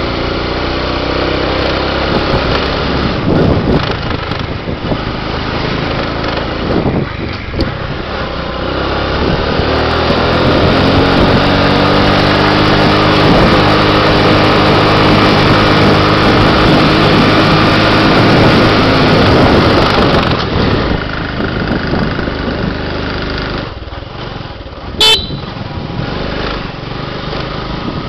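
Small motorbike engine pulling uphill: its pitch climbs over the first dozen seconds, holds steady, then drops as the throttle eases about twenty seconds in. A short horn beep sounds near the end.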